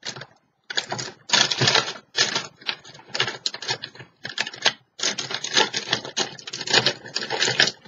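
A paintbrush being dabbed and scrubbed rapidly, making a fast, irregular run of taps and scratches in clusters with short pauses.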